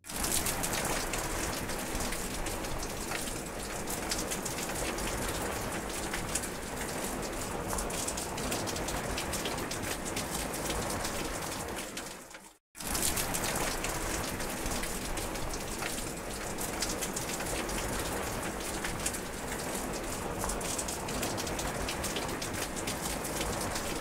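Steady rain falling, with many small drop hits throughout. About halfway through, the rain fades down to a brief moment of silence, then starts again suddenly at full level.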